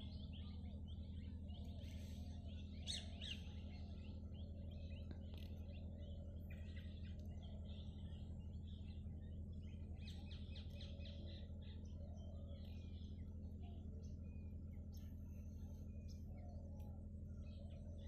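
Faint, scattered chirps of small birds calling in the background over a steady low hum.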